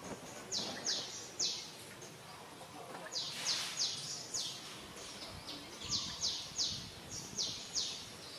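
A bird calling: short, high notes that slide down in pitch, in quick runs of two to four, repeated every second or two.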